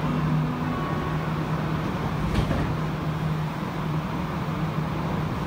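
Steady hum and rumble inside a Montreal Metro AZUR train car, with a single brief knock about halfway through.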